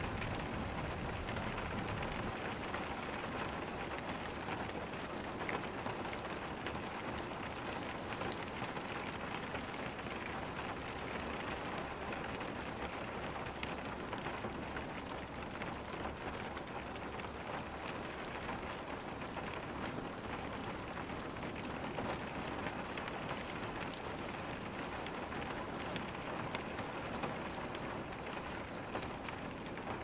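Steady rainstorm: a dense, even patter of raindrops falling without a break.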